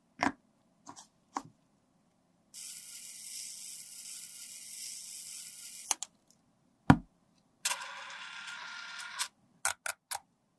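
Plastic clicks and taps from a roll-on deodorant bottle and its twist cap being handled, with one louder knock about seven seconds in. Two stretches of steady hiss, about three seconds and a second and a half long, come between the clicks.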